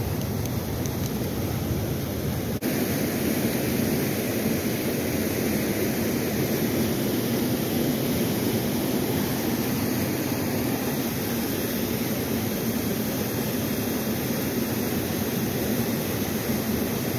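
Steady rush of fast, high-flowing river water pouring past rocks and whitewater, a continuous even noise. It drops out briefly about two and a half seconds in and comes back slightly louder.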